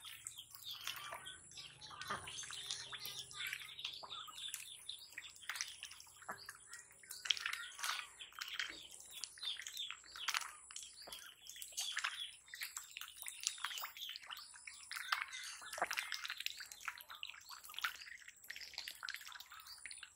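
Domestic ducks dabbling in shallow water, their bills sifting and slurping through the surface with a constant irregular patter of small splashes and drips.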